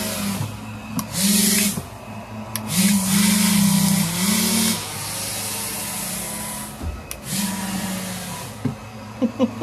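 Electric fan motors of a radio-controlled amphibious hovercraft running with a steady hum. They surge several times to a louder whine with rushing air as the throttle is opened, the longest surge in the middle.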